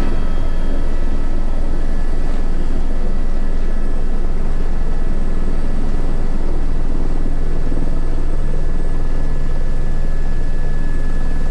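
Airbus H125 single-engine turbine helicopter running steadily: the rapid, even beat of the main rotor with a steady high turbine whine over it.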